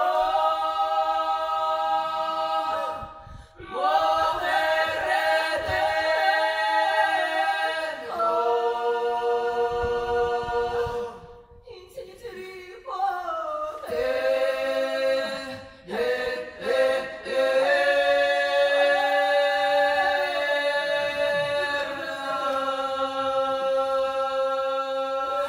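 Women's vocal ensemble singing a cappella in close harmony in a Ukrainian traditional style, holding long chords in several phrases separated by brief breaths. The singing stops abruptly at the end.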